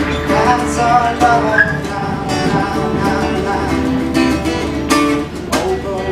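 Acoustic guitar being strummed, with a man singing his song over it.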